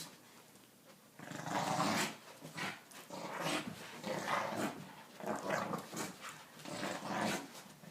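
Dogs growling in play while tugging on a toy, in repeated rough bursts that start about a second in.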